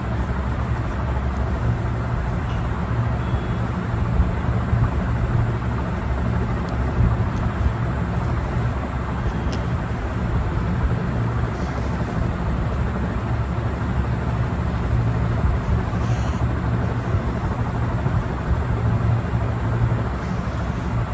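Steady low background rumble and hum, without change or distinct events.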